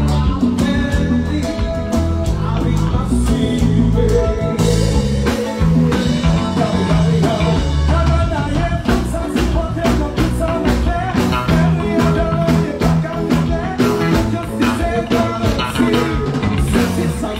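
Band music played loud and without pause: a steady drumbeat over heavy bass, with guitar and singing.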